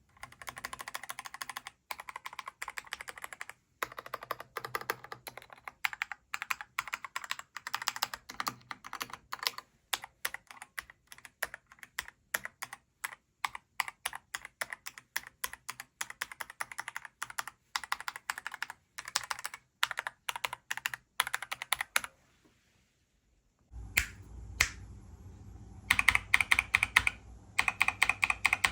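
Typing on a Skyroong GK87 Pro mechanical keyboard: quick runs of keystroke clacks. About 22 seconds in the typing stops, and after a short silence it resumes, louder and over a low hum.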